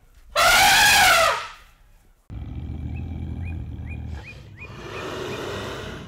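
African elephant trumpeting once: a loud, high call that rises and falls in pitch over about a second. About two seconds in, a low rumble starts with a few short bird chirps over it.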